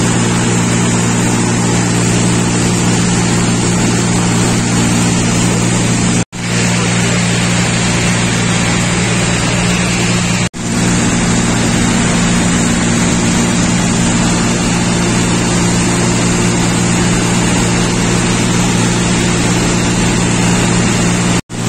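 Light aircraft's engine and propeller droning steadily as heard inside the cabin in flight: a constant low hum over a loud rushing noise. It is broken by three split-second dropouts, about six seconds in, about ten seconds in and near the end.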